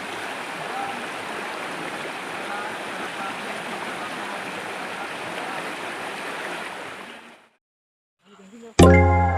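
Rushing stream water, a steady wash that fades out about seven seconds in. After a brief silence, music with sustained notes and strong bass starts near the end.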